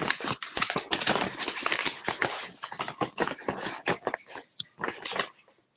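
Paper rustling and crinkling as a handmade letter and envelope are handled, a dense run of irregular crackles and taps that drops out briefly near the end.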